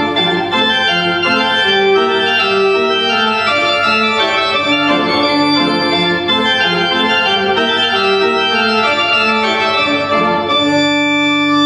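An organ plays a tune of short sustained notes over a lower part, ending on a long held chord near the end.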